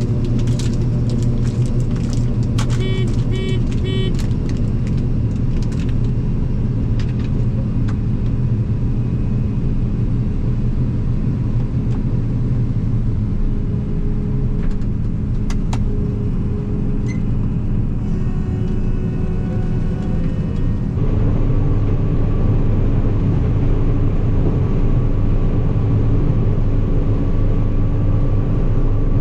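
Vehicle engine running steadily while driving, heard from inside the cab. About three seconds in there is a short run of quick electronic beeps, and about 21 seconds in the engine sound steps up louder with a different pitch.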